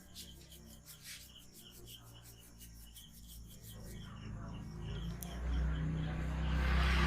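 Hands rubbing and kneading an oiled scalp and hair, a soft scratchy friction sound. A low rumble builds through the second half and is loudest near the end.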